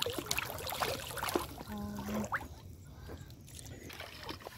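A large hooked fish thrashing and splashing at the water's surface as it is hauled toward the bank on a hand line, with water sloshing. The splashing is busiest in the first two seconds and grows quieter after that.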